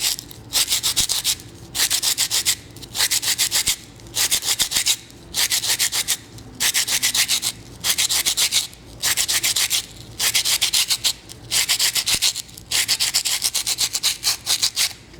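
Sandpaper rubbed by hand over a dry, unfired clay pot, in quick back-and-forth strokes that come in bursts about once a second with short pauses between.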